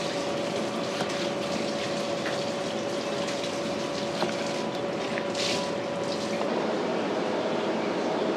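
Steady rushing kitchen background noise with a steady hum that stops about six and a half seconds in, and a few light knocks of a cleaver on a wooden chopping block as it cuts and lifts pieces of shark meat.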